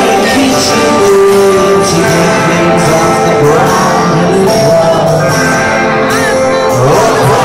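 Live rock band playing, with electric guitars and singing, heard loud from among an arena crowd.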